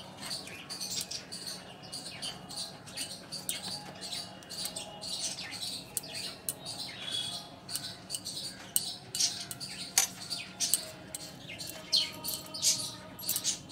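Metal spoon scraping and clicking against a steel plate as it spreads thick lentil paste over taro leaves, in short irregular strokes.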